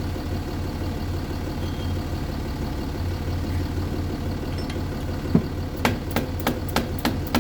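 Jaguar XF engine idling steadily, then from about five and a half seconds in a quick run of sharp metal hammer taps, about three a second, knocking the new front wheel hub round into place.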